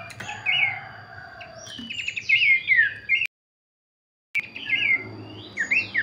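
Pelanduk semak (Horsfield's babbler) singing a string of quick, clear whistled notes that slur sharply up and down, loudest a few seconds in. The song cuts off abruptly for about a second in the middle, then starts again. A faint steady high tone runs underneath.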